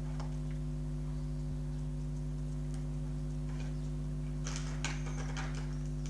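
Small knife blade scratching across spray-painted poster board in a few short scrapes, the longest about four and a half seconds in, over a steady low hum.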